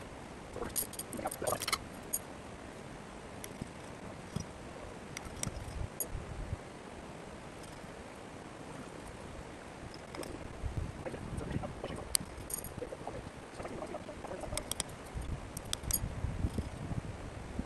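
Footsteps on dry grass and leaf litter with light rustling and a few scattered small clicks and clinks of handled gear, over a low, uneven rumble.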